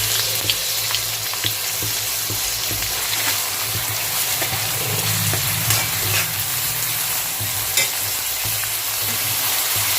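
Chopped onions deep-frying in oil and ghee: a steady sizzle with scattered small pops and crackles, over a steady low hum.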